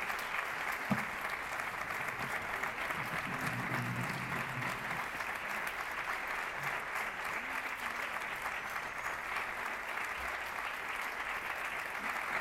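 Audience applauding steadily, a dense even clapping that keeps going without a break.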